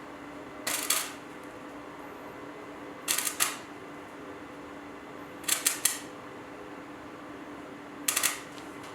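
Clusters of two or three short, sharp clicks or scrapes, repeating about every two and a half seconds over a steady low hum.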